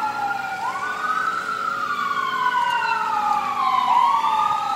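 Ambulance siren wailing in slow rises and falls, with a second wail overlapping out of step with the first.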